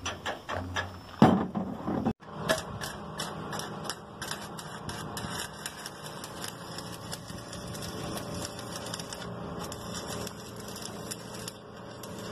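Electric arc welding on a pickup truck's steel chassis to reinforce it: a steady crackling sizzle over a low hum, starting after a sudden cut about two seconds in. Before that come a few clicks and knocks.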